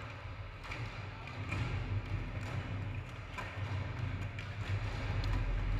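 Skateboards at an indoor skate session: scattered light taps and thumps of boards over a steady background din.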